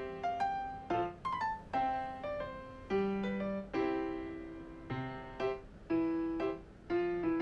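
Background piano music: single notes and chords struck several times a second, each fading before the next.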